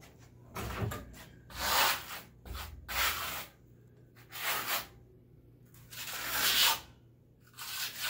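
Steel trowel scraping cement across a wall in about six separate strokes, each roughly half a second to a second long, with short pauses between.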